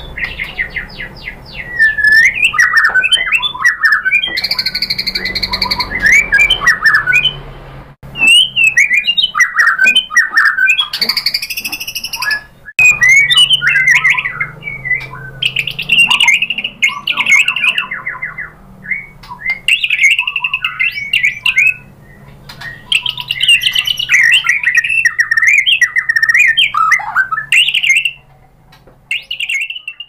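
White-rumped shama (murai batu) singing a long, varied song: loud whistles, warbles, sweeping notes and fast trills, in phrases broken by a few brief pauses.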